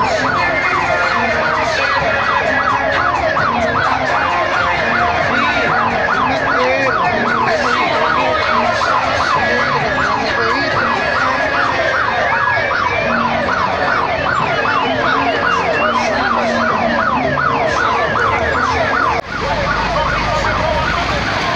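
Loud electronic siren effect: rapid falling whoops, about three or four a second, over a tune of short low notes. It drops out briefly a couple of seconds before the end and comes back with a low rumble underneath.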